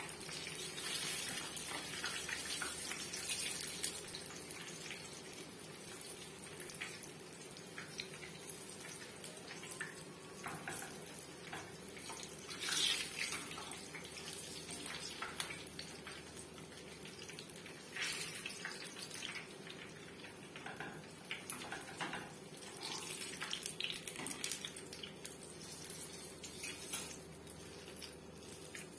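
Eggplant pieces frying in hot oil in a pan: a steady crackling sizzle, with a few louder sharp crackles and clicks as the pieces are turned and lifted with metal tongs and a slotted spoon.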